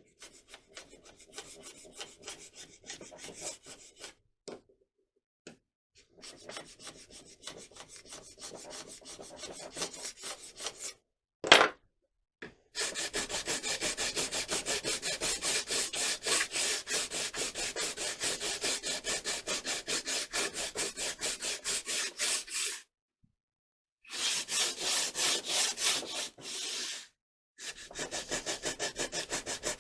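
Hand sanding with sandpaper on a rod piece to remove excess glue. Quiet, uneven rubbing strokes come first, then a sharp knock about halfway through. After that come steady, rapid back-and-forth strokes, with two brief pauses near the end.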